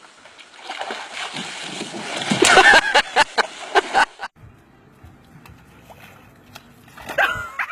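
Water splashing and sloshing for about four seconds, with pitched cries over it, then a quieter stretch before high calls start near the end.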